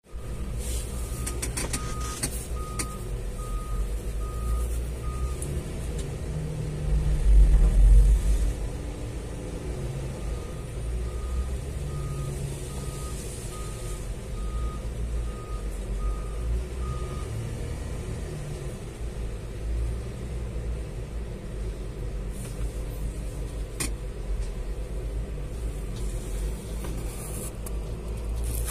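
Hyundai wheel loader's diesel engine running, with its reversing alarm beeping about twice a second in two spells while it backs up. The engine grows louder for a second or two about a quarter of the way in as it works under load.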